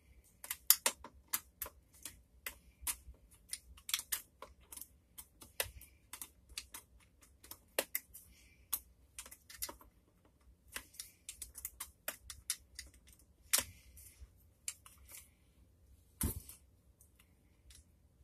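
Irregular sharp clicks and taps, a few a second, as small plastic parts of an e-bike battery pack case are handled and worked by hand, with a louder knock about sixteen seconds in.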